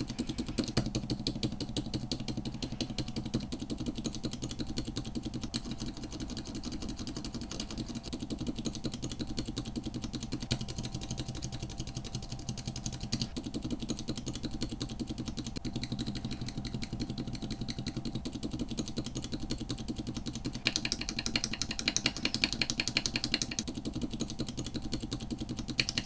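Single mechanical keyboard switches pressed over and over in rapid succession: soft, dampened clicks from silent linear and silent tactile switches such as the JWK Coral silent. From about 21 s to 24 s a louder, brighter run of clicks comes from a noisier switch in the comparison.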